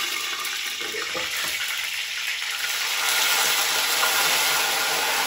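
Hot oil sizzling in a wok as chopped onion, peppers and tomato are scraped in from a cutting board. The sizzle grows louder about three seconds in as the vegetables hit the oil.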